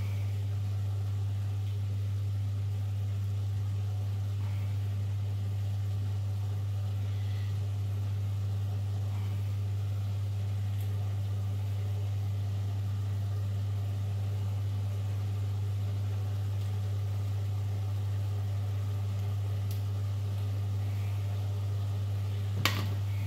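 Cooker hood extractor fan running with a steady low hum. A single sharp click near the end.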